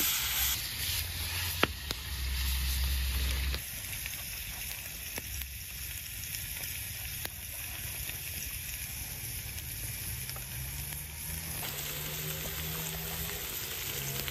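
Meat sizzling on a hot metal pan over a wood fire, louder in the first few seconds, with a few sharp knocks of a knife cutting on a wooden board.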